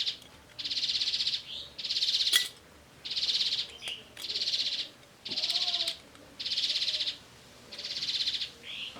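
A high, buzzy call made of rapid pulses, repeating steadily about once a second with each call lasting a little over half a second, and a few faint clicks among them.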